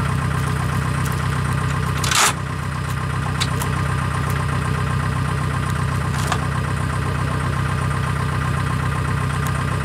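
Engines of rice-harvesting machinery, a combine harvester and tracked rice haulers, running steadily at idle with a deep, even hum. A short rushing noise cuts across it about two seconds in.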